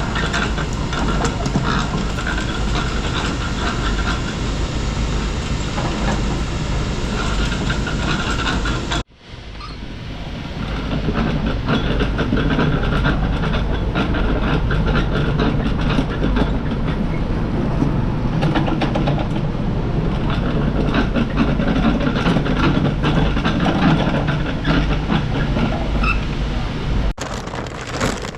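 Small red push-type lime spreader running, a steady mechanical rattle and rumble. It drops out briefly about nine seconds in, then comes back louder and lower.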